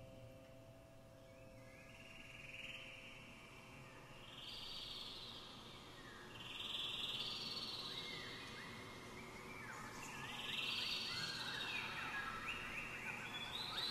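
Wind orchestra playing a quiet nature-effects passage: repeated swells of airy hiss rise and fall, and from about halfway many quick chirping whistles like birds join in. A soft held chord fades out at the start.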